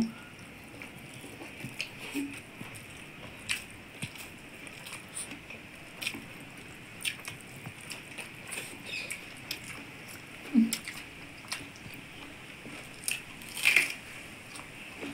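Close-miked eating: fingers mixing rice and curry against steel plates, with chewing and mouth sounds, heard as scattered soft clicks and crackles. There is a louder cluster of clicks near the end.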